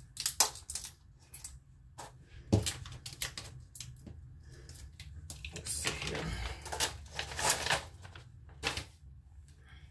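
Small packet of energy pills being handled and torn open by hand: a series of sharp clicks and crinkles, denser crinkling past the middle.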